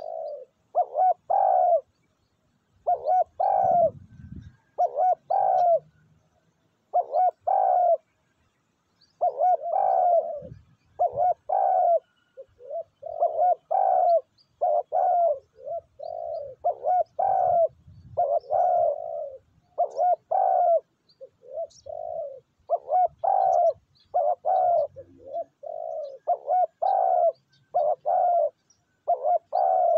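Spotted doves cooing: repeated short coo notes in quick clusters, nearly continuous.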